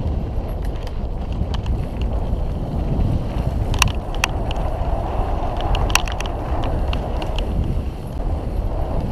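Mountain bike rolling fast over a dirt and gravel trail: a steady low rumble of tyres and wind buffeting the microphone, with sharp rattling clicks from the bike as it hits stones, a few loudest about four and six seconds in.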